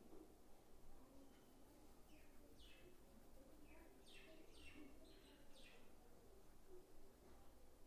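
Near silence with faint bird chirps: quick high notes that fall in pitch, a couple about two and a half seconds in and a cluster between four and six seconds.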